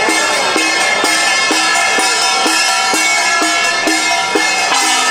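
Temple procession music: a drum struck steadily about twice a second, with other percussion and sustained ringing tones over it.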